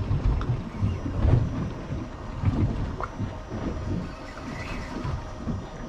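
Irregular low rumbling and buffeting of wind on the microphone aboard an anchored fishing boat, with a single faint click about three seconds in.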